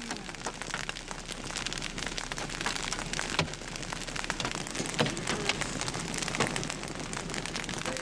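Hailstones pelting a vehicle's roof and windows, heard from inside the vehicle: a dense, steady patter of sharp clicks with a few louder knocks.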